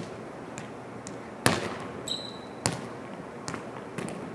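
Volleyball being set overhead repeatedly: a sharp slap of hands on the ball about every 1.3 seconds, each echoing in a large gym. There is a brief high squeak about two seconds in.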